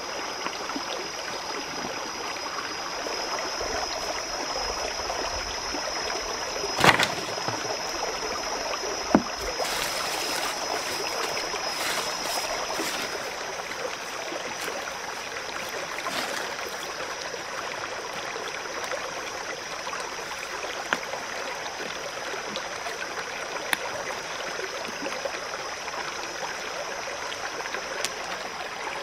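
Rocky forest stream running steadily over stones, with a steady high-pitched whine over it. Two sharp knocks come a couple of seconds apart, about a quarter of the way in.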